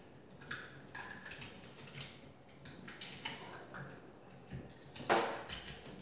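Electrical box and its cables being worked into a hole in a wall by hand: a string of short scrapes, rustles and clicks, with a louder scrape about five seconds in.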